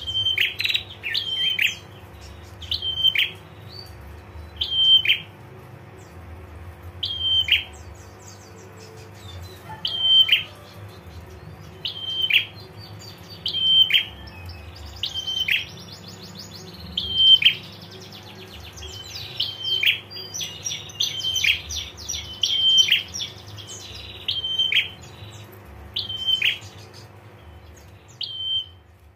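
Female prenjak calling: short sharp notes, each ending in a quick downward flick, repeated every second or two. A faster run of rapid trilled notes (the 'ngetir' call) comes between about 15 and 23 seconds in.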